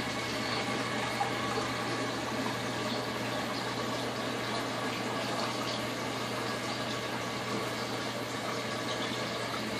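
Steady water noise with a low, even hum from a running reef aquarium's pumps and water circulation.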